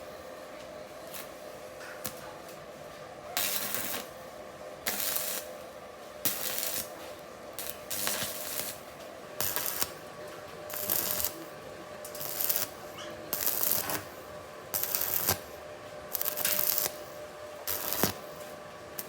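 Short rasping strokes, like hand sanding or rubbing on a workpiece, repeated about once every second or so, over a faint steady hum.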